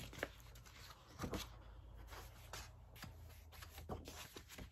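Soft paper and cardboard handling noise: a few light taps and rustles as a blue record-style disc is slid out of its sleeve.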